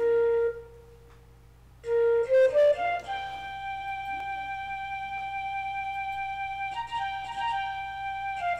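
Solo flute music: a short note, a pause, then a few notes stepping upward into one long held note.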